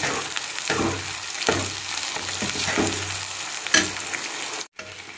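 Thick ground tomato masala sizzling in oil in a kadai, with no water added yet, while a spatula scrapes and stirs through it several times.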